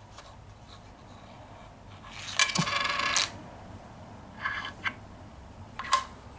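Small hard objects clink and clatter with a ringing tone for under a second, about two seconds in, followed by a few lighter clicks.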